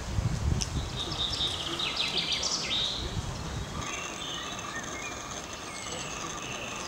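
Birds chirping and singing in trees over outdoor background noise, with a low rumble that fades out about four seconds in.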